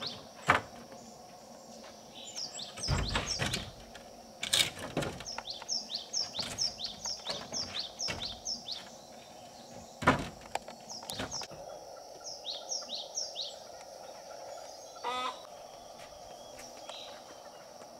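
A small bird calling in repeated runs of quick, high, downward-sliding chirps over a steady background hum. A few sharp knocks cut through, the loudest about half a second and ten seconds in.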